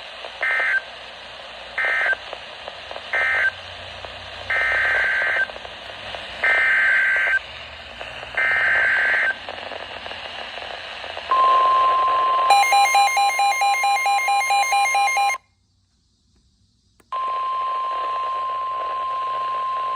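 NOAA Weather Radio alert signalling: three short warbling SAME data bursts, then three longer, about one-second SAME header bursts announcing a new warning. These are followed by the steady 1050 Hz warning alarm tone. The weather radio's own rapidly pulsing alarm beep sounds over the tone for about three seconds, then all sound cuts out for under two seconds before the alarm tone resumes.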